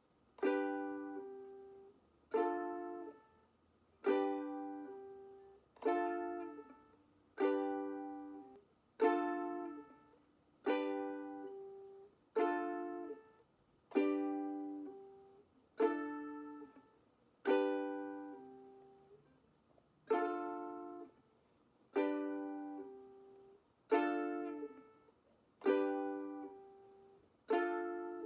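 Ukulele strummed one chord at a time, a single strum about every two seconds, each left to ring out. The chord changes back and forth between strums, drilling the change from D minor to G.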